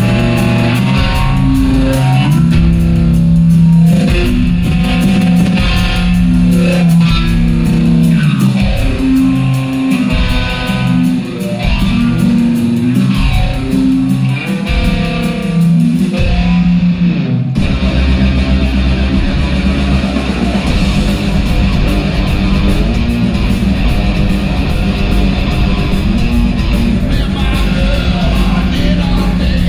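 Live hard rock band playing an instrumental intro. A distorted electric guitar riff comes in stop-start phrases, with drums. About seventeen seconds in, the full band with bass and drums comes in and the sound turns dense and continuous.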